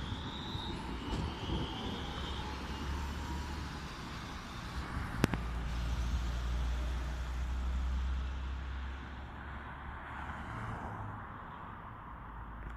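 Alstom Citadis tram's electric traction motors whining with rising pitch as it accelerates away, fading in the first couple of seconds. A low traffic rumble swells and eases in the middle, with one sharp click about five seconds in.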